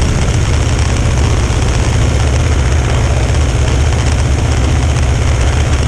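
Cessna 150's engine and propeller running steadily at reduced power in slow flight, heard from outside the cabin under heavy wind rush on the microphone.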